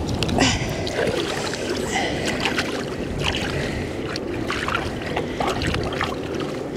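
Loch water lapping and sloshing in the shallows around a small dog being washed, with a few small splashes.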